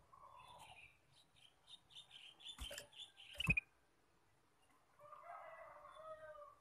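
Male ruby-throated bulbul (kutilang emas) singing: a run of quick, high chirps that ends about three and a half seconds in, then a lower warbling phrase near the end. Two sharp knocks come among the chirps, the second one the loudest sound.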